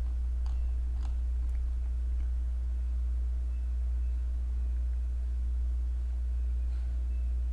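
Steady low electrical hum in the recording, with two faint clicks about half a second and a second in.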